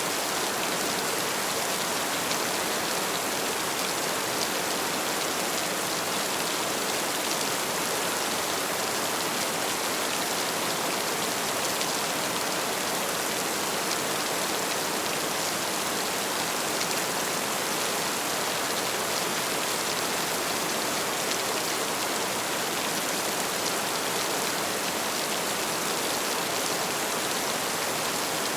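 Heavy rain falling steadily: a dense, even hiss with a fine patter of drops.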